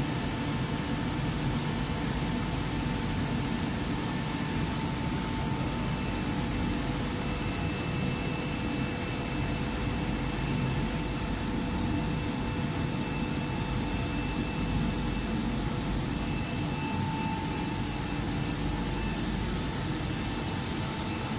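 Adhesive BOPP tape coating machine running: a steady mechanical drone of turning rollers and drives, with faint steady whines over it.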